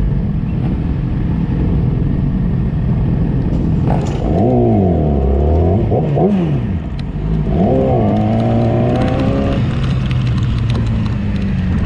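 Sport motorcycle engine running under way, its pitch dipping and climbing as the throttle is worked, about four seconds in and again near eight seconds, over a steady engine drone and wind noise.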